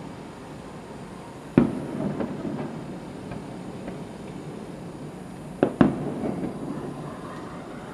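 Aerial firework shells bursting in the distance: one sharp bang about a second and a half in, then two bangs in quick succession a little after five seconds, each trailing off in a rolling rumble.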